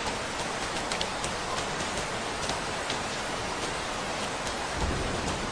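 Steady rain falling: an even hiss with scattered sharp drop ticks, and a brief low rumble near the end.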